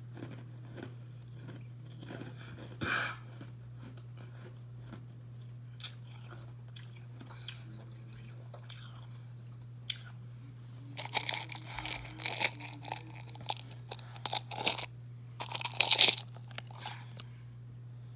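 Carbonated ice being bitten and chewed close to the microphone. Soft chewing at first, a single crunch about three seconds in, then a run of loud crunches in the second half that is loudest near the end. A steady low hum runs underneath.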